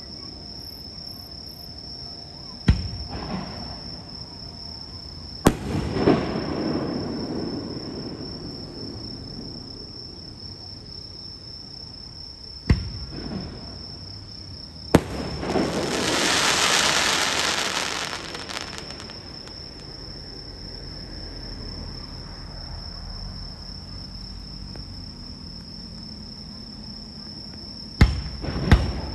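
Aerial fireworks shells bursting: sharp bangs about 3, 5½, 13 and 15 seconds in and a quick cluster near the end, several trailed by a low rumble. After the bang at about 15 seconds comes a loud crackling hiss lasting about three seconds. Insects trill steadily underneath throughout.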